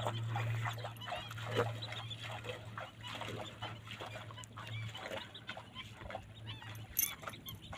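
Scattered short animal calls, a string of brief chirping cries, over a steady low hum.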